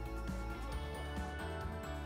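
Instrumental background music: held notes over a steady bass line.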